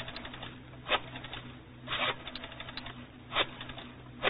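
Radio-drama sound effect of footsteps: four slow, evenly paced footfalls a little over a second apart, each with a faint clatter after it, over the low steady hum of an old recording.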